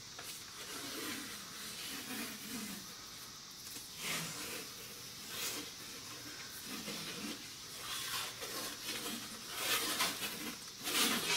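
Duct tape being pulled off the roll in several short ripping pulls and wrapped around a bundle of Roman candles, with rustling handling in between.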